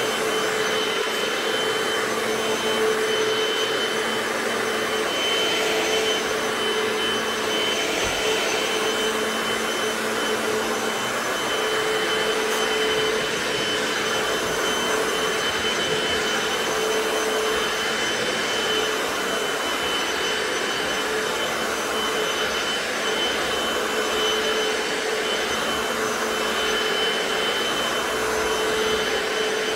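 Hoover FloorMate wet hard-floor cleaner running steadily as it is pushed over a hardwood floor: a continuous whine with a steady hum that swells and fades every few seconds.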